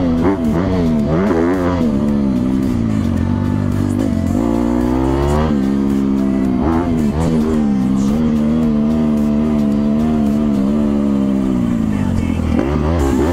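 Motocross dirt bike engine revving hard and falling back again and again as the rider accelerates out of corners and shifts gears, heard from the rider's helmet.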